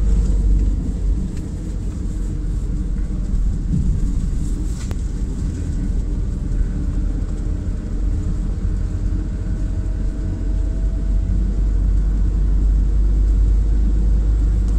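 Road and engine noise inside a moving car's cabin: a steady low rumble, with a faint whine that slowly rises in pitch through the middle.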